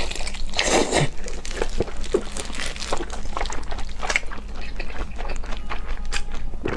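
A person chewing and biting food close to the microphone: irregular mouth clicks and smacks, several a second.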